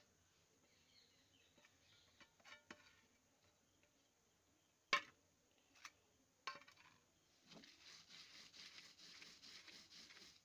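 A few sharp knocks, the loudest about halfway through. Then, from about three-quarters of the way in, a rhythmic rasping scrape as a hand-held stone is rubbed back and forth over a flat grinding stone, grinding a wet paste.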